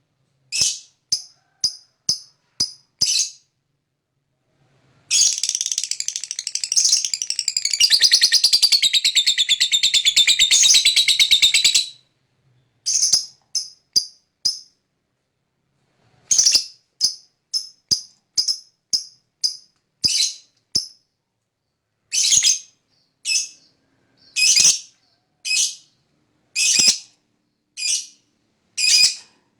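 Lovebird calling: sharp high chirps, then a long, fast chattering trill (the 'ngekek') lasting about seven seconds from about five seconds in, followed by repeated bursts of sharp chirps.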